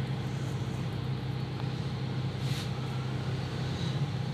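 A steady low hum, with a faint soft noise about two and a half seconds in.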